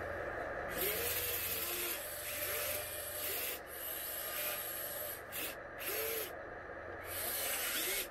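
Electric drive motors and gearboxes of a 1/14-scale RC Volvo EC160E excavator running in short start-and-stop bursts as the boom and bucket are worked, a gritty hiss over a steady low hum.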